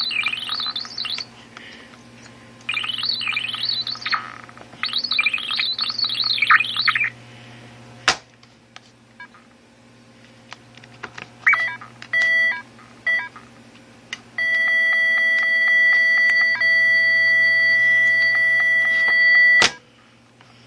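Casio MA-10 alarm clock's beeper going haywire from failing electronics, acting as if circuit-bent. It gives three bursts of warbling, chirping tones, then a few short beeps, then a steady high beep held for about five seconds that cuts off suddenly with a click.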